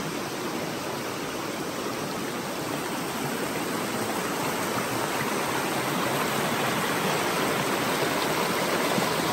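Fast-flowing river rushing over rocks in whitewater: a steady noise of running water that grows gradually louder over the second half.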